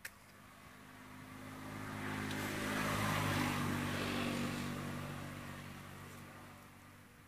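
A motor vehicle driving past: its engine and road noise swell for about three seconds, peak in the middle, then fade away.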